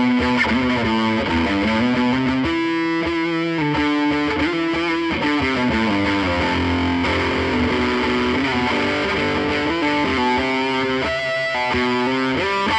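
Background music led by a distorted electric guitar playing a changing melody.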